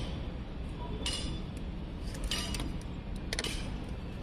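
Plastic pipe fittings being handled and screwed together by hand as a pipe union is fitted: a few short clicks and scrapes, roughly a second apart.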